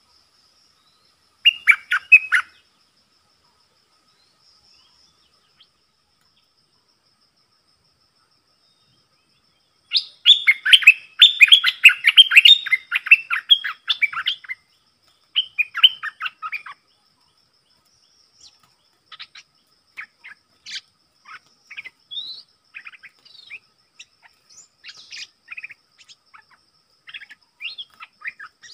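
Bulbul calls: a short burst of rapid notes about two seconds in, then a loud, dense run of rapid notes from about ten to fourteen seconds, another short run just after, and fainter scattered notes in the last third.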